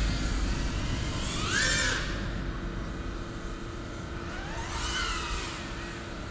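Small FPV drone's motors and propellers whining, the whine rising and falling in pitch twice, about a second and a half in and again near five seconds in, over a steady low rumble.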